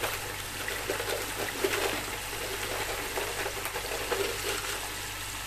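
Tomato, chicken and potato masala sizzling and bubbling in a pot, a steady crackle with a low steady hum underneath.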